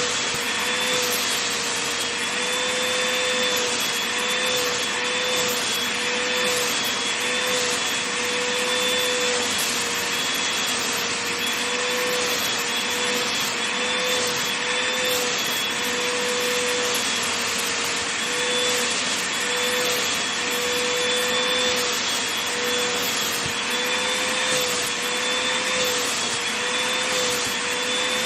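Vacuum cleaner running steadily, a motor whine over a rushing airflow, being passed back and forth over a blanket.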